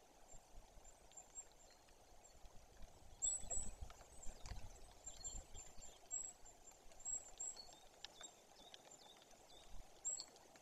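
A small songbird giving high, thin, short chirps over and over, over a faint steady forest hiss. A few dull low knocks come near the middle.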